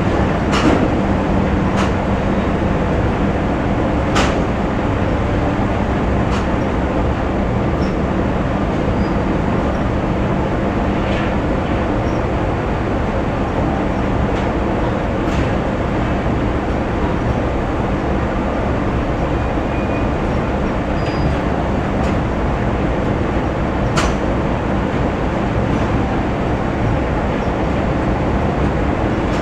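Factory machinery ambience: a steady, dense rumble with a low hum, broken by a few sharp metallic clanks, the loudest about 24 seconds in.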